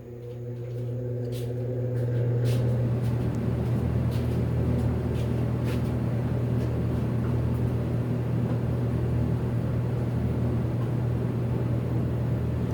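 Old built-in barn exhaust fan switched on: its electric motor hums and the fan spins up over about two seconds, then runs steadily and loudly, drawing the hot air out.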